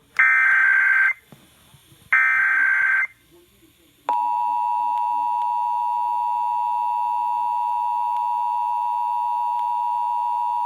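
Emergency Alert System SAME header: two bursts of digital data tones, each about a second long and a second apart, marking the start of a Required Monthly Test. About four seconds in, the EAS two-tone attention signal (853 and 960 Hz) starts suddenly and holds steady.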